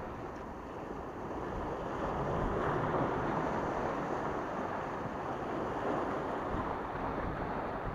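Sea waves washing and splashing against the rocks of a breakwater, swelling louder about two seconds in, with wind rumbling on the microphone.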